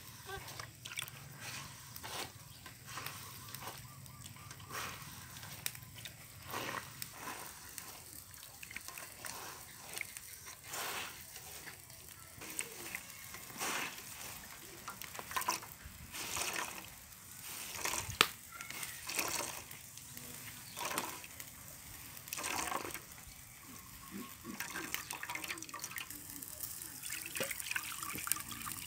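A wet cloth bundle kneaded and wrung by hand in a metal basin of milky liquid: repeated squelching and sloshing, about one squeeze a second, with dripping. Near the end the milky liquid is poured into a bowl.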